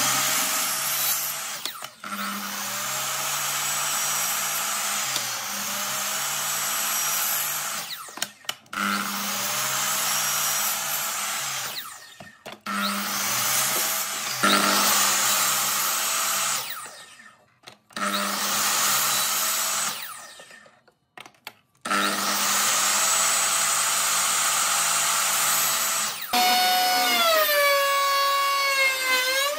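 Makita sliding compound miter saw running and cutting through small wooden blocks, cut after cut with short breaks between. Near the end a router takes over with a pitched whine that dips and comes back up as wood is fed past its bit.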